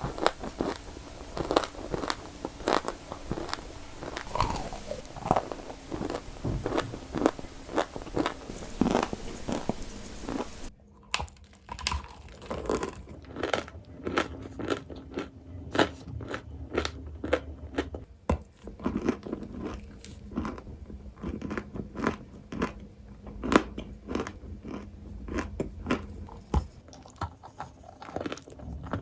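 Crunchy balls being crunched: many sharp, crackly crunches in quick, irregular succession. About eleven seconds in it cuts to another clip with a quieter background.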